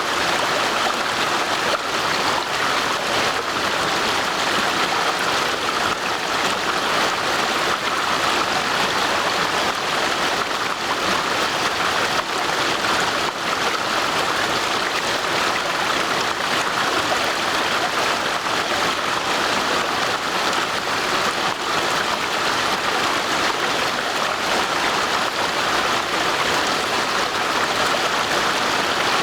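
Stream water rushing and gurgling steadily over rocks, an even splashing noise without pauses.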